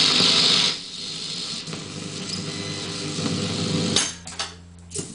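1958 RFT Stradivari 2 valve radio hissing with static between stations, loud at first and then dropping to a quieter background noise. About four seconds in, a piano-key band button clicks, a low hum sounds briefly, and a second click follows near the end.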